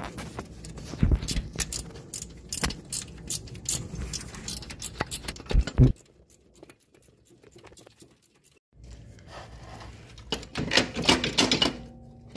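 Ratchet and socket clinking and clicking against metal in irregular strokes as a bolt on the A/C compressor is worked loose, then a pause of a few seconds and another flurry of metal clinks near the end.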